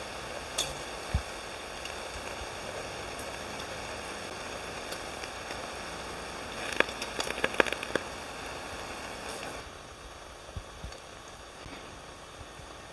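Frozen pork belly sizzling in a waffle maker: a steady hiss with a burst of sharp pops and clicks about seven seconds in, then the hiss drops quieter near the end.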